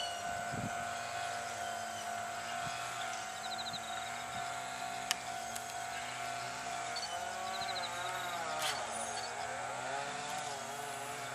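Distant road traffic: vehicle engines running steadily, one rising and falling in pitch as it passes near the end, with a few short high trills now and then.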